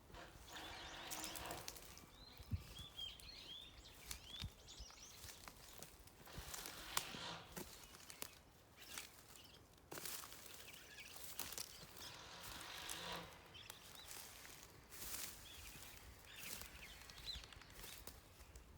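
Faint outdoor ambience with a few short bird chirps and scattered small clicks and rustles.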